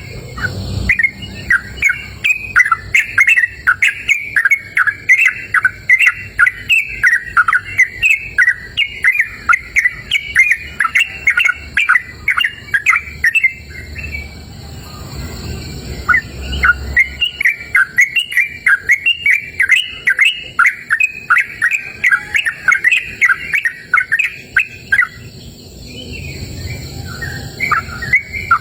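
Yellow-vented bulbul (trucukan) singing, a fast run of short chirping notes repeated almost without break, with a pause about halfway through and a shorter one near the end.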